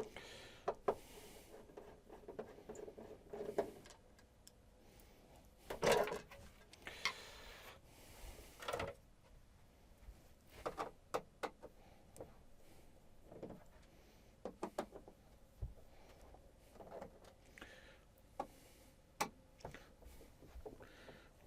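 Scattered clicks, knocks and rubbing of things being handled, with the loudest knock about six seconds in and a quick run of small clicks around eleven and fifteen seconds.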